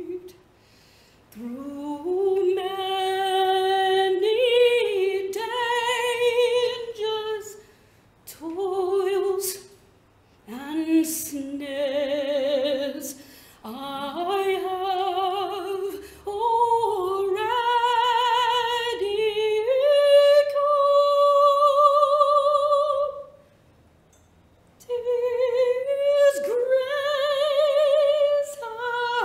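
A woman singing solo and unaccompanied. She holds long notes with vibrato, in phrases separated by short pauses.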